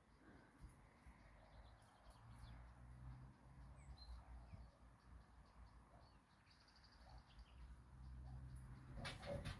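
Faint, scattered bird chirps over a quiet outdoor background with a low rumble, and a brief burst of noise about nine seconds in.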